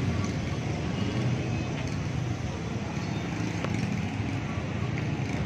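Steady rumble of street traffic: vehicles running along a busy town road, with a few faint ticks above it.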